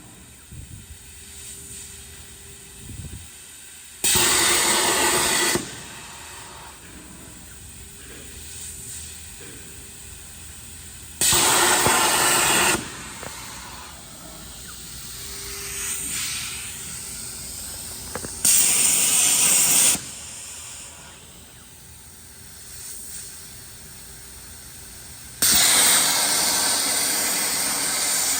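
Hypertherm HPR400XD plasma arc on a Koike Aronson CNC cutting table firing in four loud, abrupt bursts about seven seconds apart. Each of the first three lasts about a second and a half, and the last runs on near the end. A quieter machine background with a faint steady tone lies between them.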